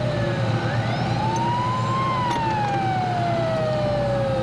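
Emergency siren wailing: its tone rises quickly, falls slowly over about three seconds, and starts to rise again near the end, over a steady low engine drone.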